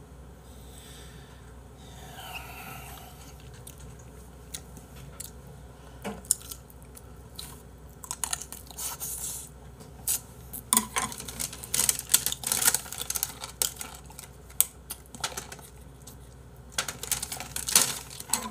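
Eating sounds: braised chicken pulled and chewed, with a spoon and chopsticks clicking against ceramic bowls. Scattered short clicks and crackles, coming thicker from about eight seconds in.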